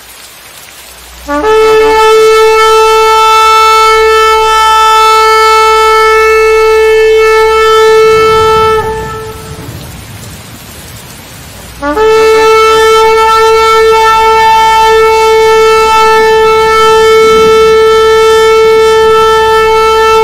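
Shofar (ram's horn) sounding two long, steady blasts on one held note, the first starting about a second in and ending just before the middle, the second starting a little past halfway and still going at the end. Between the blasts there is a quieter low rushing rumble.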